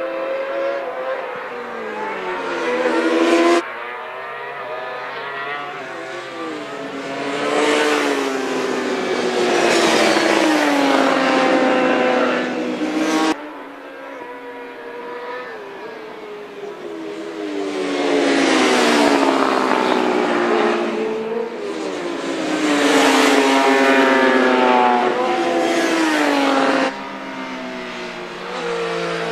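Road-racing motorcycles passing at speed through a corner, engines revving high. The pitch falls as the riders shift down and brake, then climbs as they accelerate away, over several passes, with abrupt cuts between shots.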